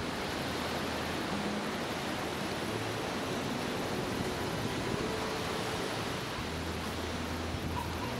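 Small waves washing up onto a sandy beach: a steady hiss of surf.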